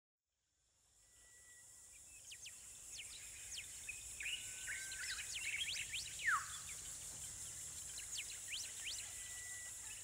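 Nature ambience fading in from silence: a steady high insect hum under many short bird chirps, with one louder falling call about six seconds in.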